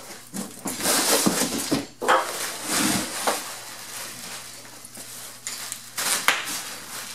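Cardboard shipping box scraping and rustling as it is slid off a long bubble-wrapped rocker panel, then plastic bubble wrap crinkling as the panel is lifted and handled, with a few sharp clicks near the end.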